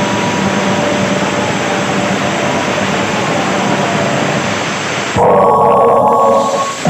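Loud, steady hiss-like noise from a big sound system. About five seconds in it cuts abruptly to a harsh mid-pitched buzz for under two seconds, just before the music starts.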